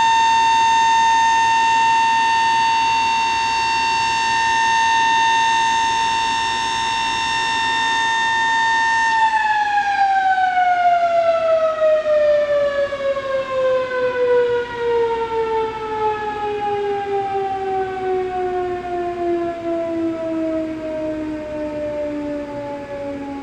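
Sterling Model M outdoor warning siren holding a steady tone, then about nine seconds in the power cuts off and it winds down. The pitch falls slowly and the loudness wavers as the rotor coasts, ending its 45-second steady alert.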